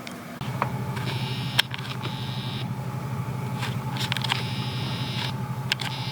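A steady low mechanical hum starts about half a second in, with a few clicks over it and a higher hiss that comes and goes.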